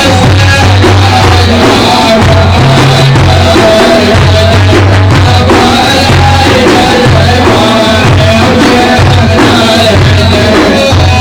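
Instrumental interlude of an Arabic madih praise song: a loud, steady beat of drums and bass under a melody line, between sung verses.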